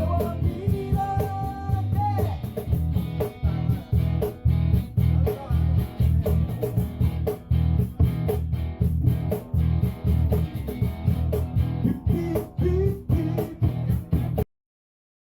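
Acoustic band music: guitars strummed in a steady rhythm, with a voice singing over them in places. It cuts off abruptly near the end into silence.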